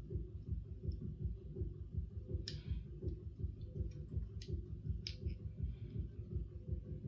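A few sharp metallic clicks of a handcuff key and TCH 840 handcuffs being fumbled, the loudest about halfway through, over a steady low rhythmic throbbing hum.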